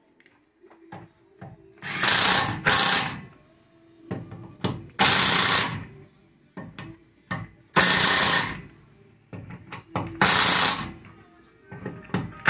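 Cordless impact wrench hammering the wheel's lug bolts tight on a Volkswagen Beetle as a new tyre is fitted. It runs in five short bursts, each under a second, with light metal clicks of the socket and bolts between them.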